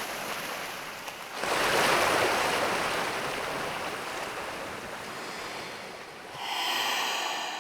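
Waves washing in: one swell about a second and a half in that slowly dies away, and another near the end.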